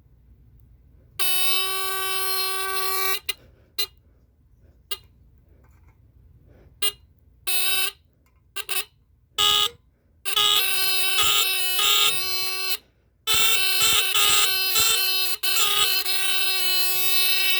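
Vintage 1960s Japanese battery-powered fire alarm horns, set off by pressing their test strips, buzzing with a steady low horn tone. One sounds for about two seconds, then comes a string of short blasts, and from about halfway through two or more horns at different pitches sound together, cutting in and out.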